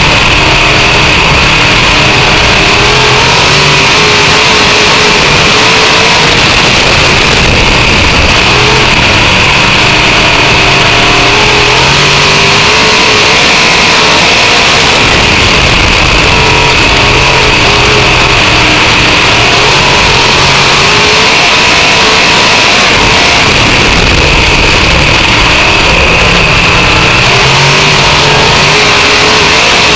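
Dirt-track race car engine, heard loud from inside the car at racing speed. Its pitch repeatedly rises and falls over several seconds as the throttle comes on and off.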